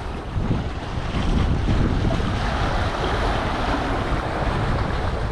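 Ocean surf washing over jetty rocks, a steady noise, with wind rumbling on the microphone.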